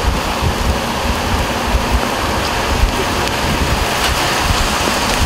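Steady rain and wind noise heard from inside a moving vehicle, with a gusting low rumble underneath.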